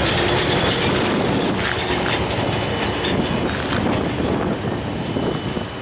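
Freight train wagons rolling past on the rails, wheels clacking with a thin high squeal, the sound falling away as the end of the train moves off.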